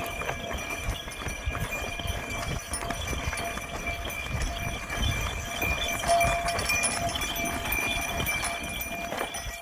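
A pair of bullocks walking on a dirt track, their hooves thudding irregularly as they drag a stone block on chains that scrapes along the ground.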